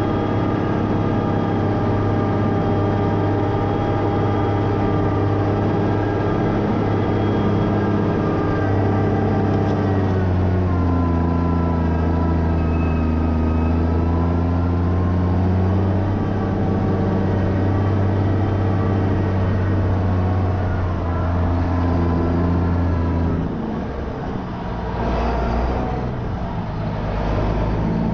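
GMC C8500 tandem-axle dump truck's engine running under load as the loaded truck drives across soft ground. The engine note dips and climbs back about ten seconds in, and eases off near the end.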